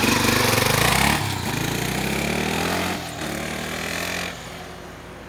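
Honda XR Tornado 250's single-cylinder four-stroke engine accelerating away. Its note breaks and drops twice, about one and three seconds in, then fades sharply a little after four seconds as the bike moves off.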